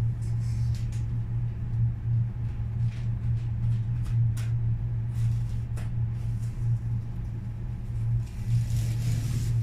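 A steady low hum, wavering slightly in level, with a few brief faint clicks.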